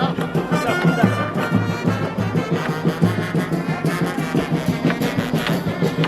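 Music with a steady, repeating bass beat and pitched instrumental lines over it.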